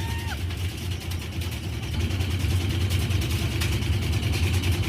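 Washing machine drum spinning at high speed with a brick inside and its shock absorbers removed: a heavy low rumble with a fast, even rattle, growing a little louder about two seconds in.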